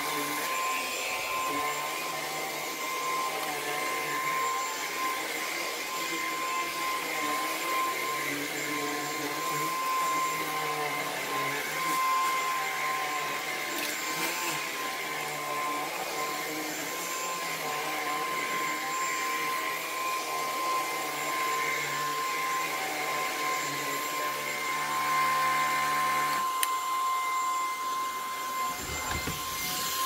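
Lupe Pure Cordless stick vacuum running steadily with a high motor whine, its powered brush head pushed over carpet. Its note shifts a little near the end.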